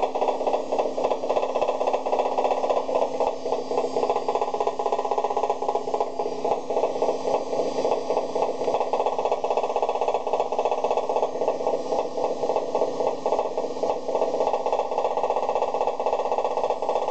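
Beko washing machine running with a rapid, continuous knocking rattle over a steady hum. The knocking is a new fault that the machine has developed.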